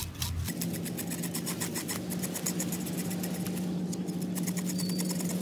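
Knife blade scraping the scales off a needlefish (todak) in quick, repeated strokes along the body. A steady low hum runs underneath.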